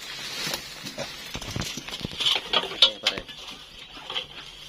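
Metal snake tongs clicking and knocking in short, irregular clacks, with rustling in dry leaf litter as the snake is worked.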